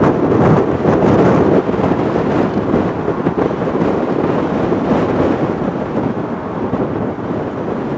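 Tecnam P2006T twin-engine light aircraft flying overhead, its two Rotax piston engines and propellers giving a loud, steady, rough drone.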